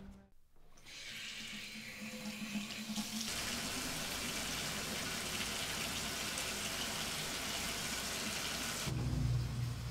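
Water running steadily, starting about three seconds in and cutting off suddenly near the end, followed by a brief low rumble.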